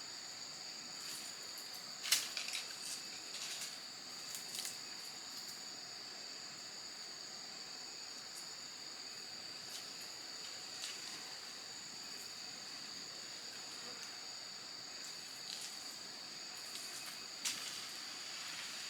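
Steady high-pitched insect chorus of crickets or cicadas, with a few sharp knocks about two seconds in and again near the end.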